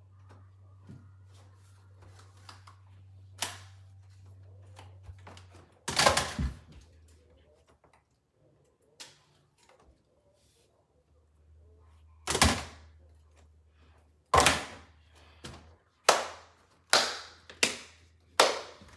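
Sharp clacks and knocks of model train track sections being handled, knocked together and set down: one early knock, a pair about six seconds in, then a quick run of about six clacks over the last seven seconds.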